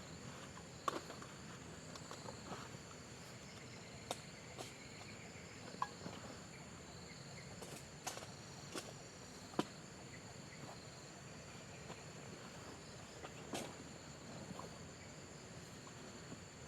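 Steady high-pitched chorus of insects trilling, with scattered sharp ticks and taps every second or so.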